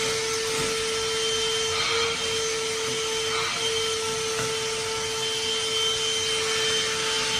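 Black & Decker PV1420 14.4 V cordless handheld vacuum running steadily, a constant whine over a rushing hiss, as it sucks debris up from a sofa.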